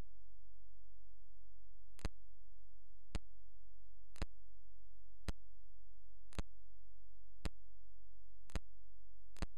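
Sharp single clicks about once a second, eight in all starting about two seconds in, over a steady low hum.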